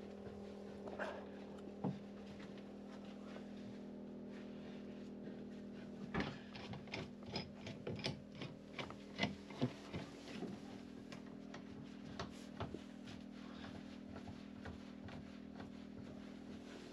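Bar clamps being handled and screwed tight on a freshly steamed wooden web frame: scattered light clicks and knocks, most of them in the middle stretch, over a steady low hum.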